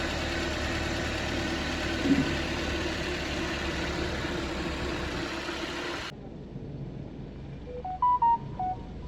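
Car engine idling steadily, then cut off abruptly about six seconds in. After it, a quieter background and a quick run of four or five electronic beeps at different pitches near the end.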